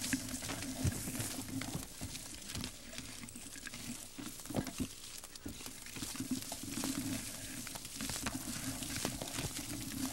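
Dry reed and brush stems rustling, crackling and snapping against the camcorder as it is pushed through dense growth, with many irregular sharp clicks over a steady hiss.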